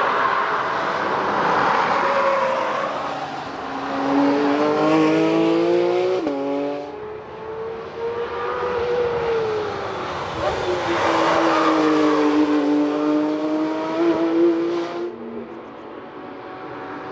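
Porsche 911 GT3 RS prototype's naturally aspirated flat-six running hard through corners: the note climbs in pitch and breaks sharply about six seconds in, then on a later pass dips and climbs again before cutting off about fifteen seconds in.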